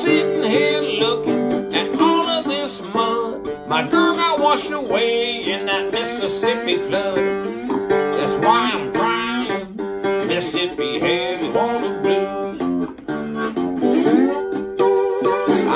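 Acoustic guitar playing a country blues, with a man singing along.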